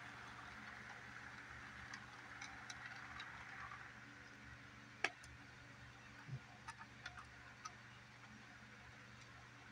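Model freight train rolling past on its track: a faint steady running hum with scattered light clicks of the cars' wheels over the track, one sharper click about five seconds in.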